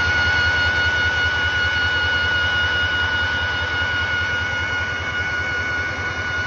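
A 20-cylinder EMD 645E7B two-stroke diesel engine running steadily at a constant speed, with a rapid low throb. The turbocharger gives a steady high whine over it.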